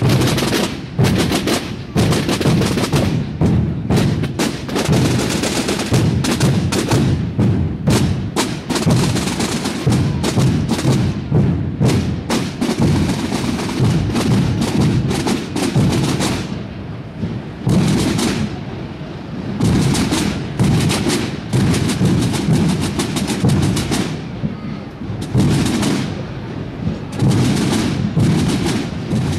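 Holy Week procession drums: hooded drummers beating a steady, dense marching rhythm on snare-type and deeper drums. The sharp strokes thin out briefly a little past halfway, then pick up again.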